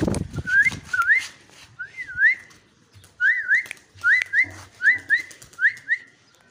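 A person whistling a pigeon-calling cue: a string of short rising whistles, many in quick pairs, stopping shortly before the end.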